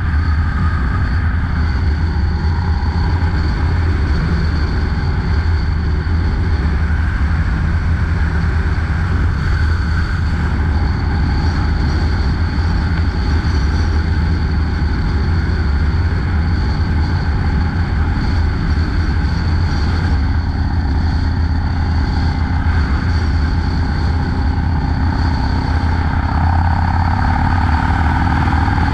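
Harley-Davidson Dyna Low Rider S (FXDLS) V-twin running steadily at cruising speed, heard from the saddle with a heavy low rumble and wind rush. The pitch climbs a little near the end as the bike picks up speed.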